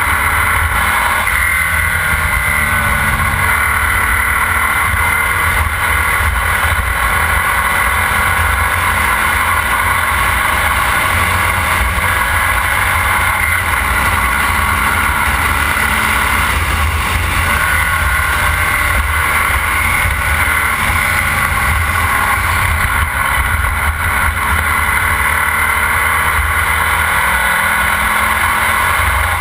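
Formula Vee race car's air-cooled Volkswagen flat-four engine running hard at racing speed, heard on board with heavy wind buffeting on the microphone; the engine note rises and falls gently.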